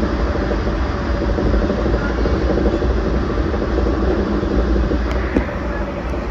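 JR Central 383 series electric limited express train running at speed on the line, a steady rumble of wheels on rail and running gear.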